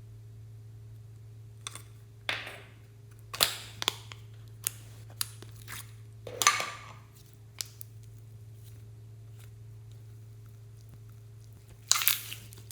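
Slime being squeezed and worked by hand: scattered sticky clicks and pops, with a few short crackling squelches, over a steady low hum.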